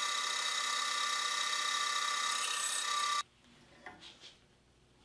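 Band saw running steadily while a wood strip is sliced into small trapezoid blocks. The sound cuts off suddenly about three seconds in, leaving a few faint light knocks of the small wooden pieces being handled.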